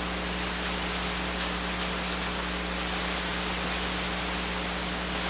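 Steady hiss with a low electrical hum, the recording's own background noise. A few faint high ticks sit in it, with no clear sound of the screw work.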